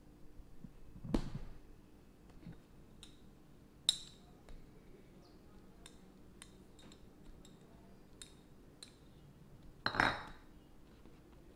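Stainless-steel rolling pin handled on a wooden board while rolling out bread dough: a thud about a second in, a sharp metallic clink with a short ring about four seconds in, light clicks as it rolls, and a louder ringing knock near the end as it is set down.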